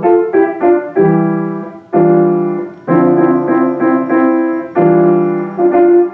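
Piano music: struck notes and chords that ring and fade, some held for about a second.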